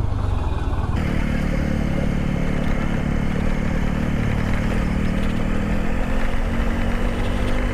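Motorcycle engine running steadily at low speed, with a rough noise of tyres on a gravel lane that grows louder about a second in.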